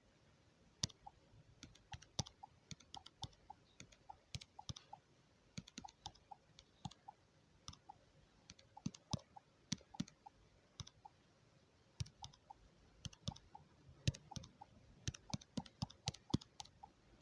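Keys being pressed: irregular clicks in quick clusters, several a second, some with a short faint tone.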